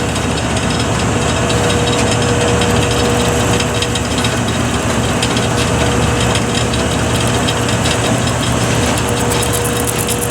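Lathe motor running steadily and spinning a roll of tape, a continuous mechanical hum with a thin steady whine that drops out in the middle and comes back near the end.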